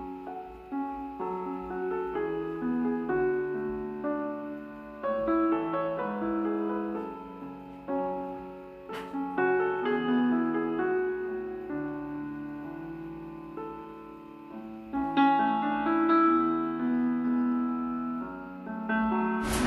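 Background music: a slow solo piano piece, one note or chord at a time with a gentle melody. A loud burst of noise cuts in at the very end.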